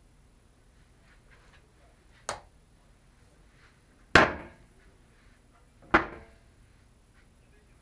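Three sharp knocks from cabin wardrobe doors being handled and shut, about two seconds apart, each ringing briefly. The second and third are the loudest.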